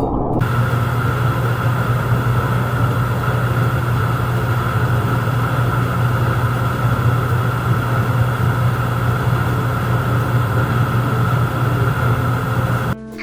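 Steady, loud mechanical hum: a low drone with a fainter higher tone over even noise, unchanging throughout and cutting off abruptly near the end.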